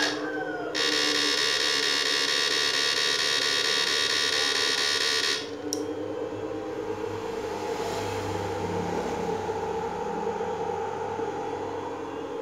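SUSAN-1030SMP electrofishing inverter buzzing under load as it powers a 500-watt halogen test bulb: a loud, harsh, high-pitched buzz for about five seconds that cuts off suddenly, leaving a quieter steady hum.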